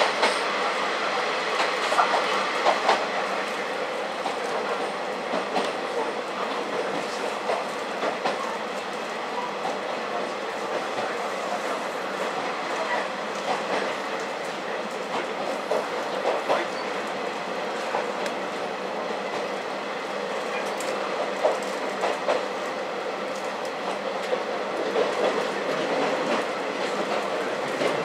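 KiHa 40 diesel railcar heard from inside the carriage, running steadily along the line, with its wheels clicking over rail joints every few seconds.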